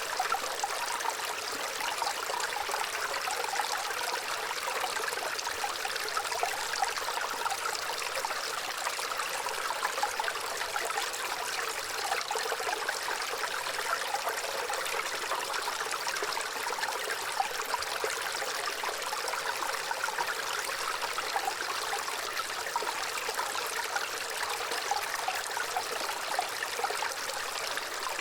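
Gentle running water flowing and trickling steadily, a continuous bright splashing with no bass.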